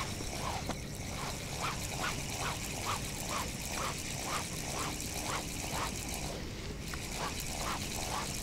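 An animal calling over and over at a steady pace, about two short calls a second, with a brief break about six seconds in.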